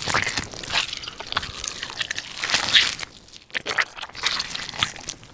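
Irregular crunching and crackling: a dense run of short rustling, scraping noises and clicks, loudest a little under three seconds in and fading toward the end.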